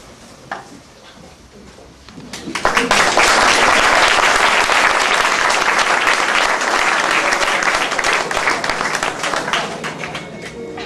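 Audience applauding: dense clapping breaks out about two and a half seconds in, stays loud, then thins out toward the end.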